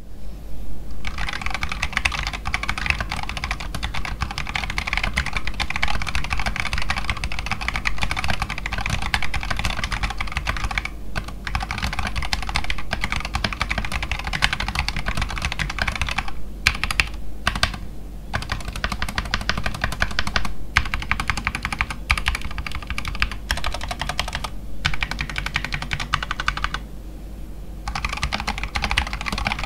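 Fast, continuous typing on an Akko 5108 mechanical keyboard: a dense run of key clacks broken by a few short pauses.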